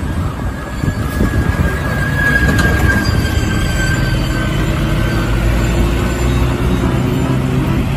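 Toy tow truck rolling: a steady rumble of its wheels with a faint high whine above it.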